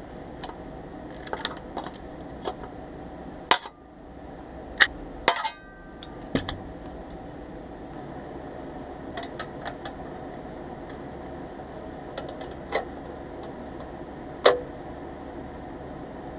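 Pressed-steel Tonka loader parts handled on a workbench: scattered light clicks and clinks, with about half a dozen sharper metal knocks, one about five seconds in ringing briefly. A steady background hum runs underneath.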